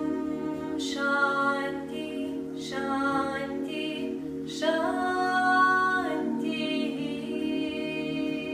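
Intro music: a voice singing long held notes over a steady low drone.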